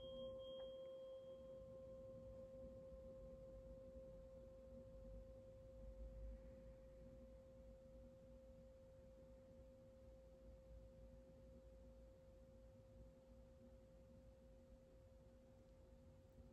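Sound-healing tuning fork ringing after a strike: one steady mid-pitched tone that fades slowly, with faint higher overtones dying away within the first second or two.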